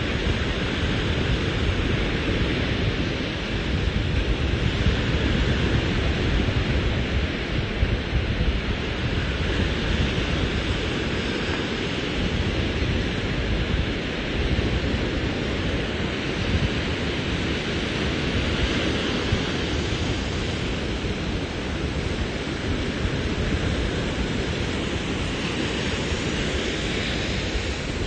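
Gulf surf breaking on a sandy beach, a continuous wash that swells every several seconds, under a steady low rumble of wind buffeting the microphone.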